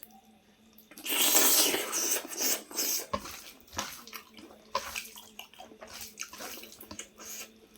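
Water pouring or running in a loud rush for about two seconds, then a few light clicks and clatter.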